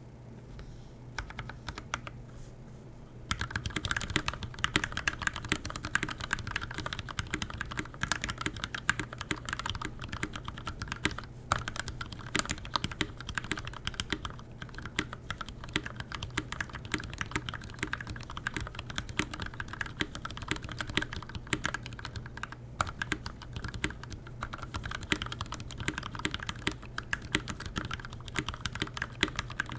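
Keychron K6 aluminum mechanical keyboard with lubed Gateron Red linear switches and PBT keycaps being typed on fast and continuously. A few isolated key presses come first, and steady rapid typing starts about three seconds in.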